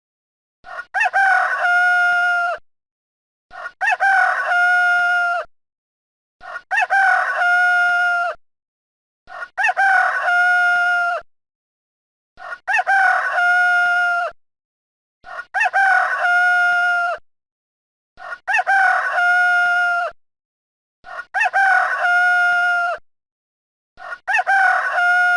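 Rooster crowing: the same crow, a short rising start then a long held note, repeated nine times about every three seconds with dead silence between, a looped sound effect.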